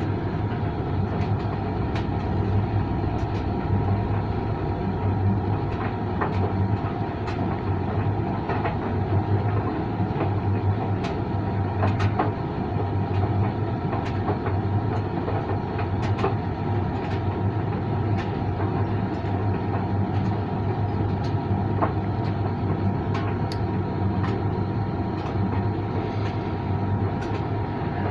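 Creda 37762G tumble dryer running: a steady drum-and-motor rumble with a pulsing low hum and irregular sharp clicks scattered throughout.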